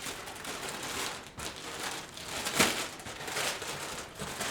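Sellotape being picked at and peeled off cardboard packaging by hand, with crinkling and rustling handling noise and a sharp crack about two and a half seconds in.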